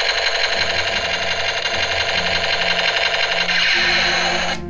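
Battery-powered toy Uzi sub-machine gun playing its electronic machine-gun sound effect: a loud, rapid rattling burst that cuts off briefly near the end.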